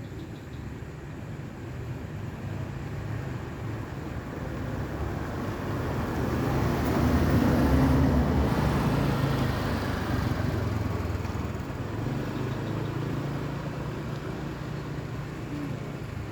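Road traffic: a vehicle passes, swelling to its loudest about eight seconds in and then fading. A steady low engine hum runs underneath.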